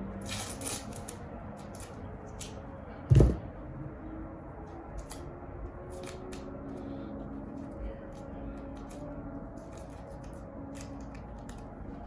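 Wire harness being handled: scattered clicks and rustles of wires and plastic connectors being sorted, with one loud thump about three seconds in.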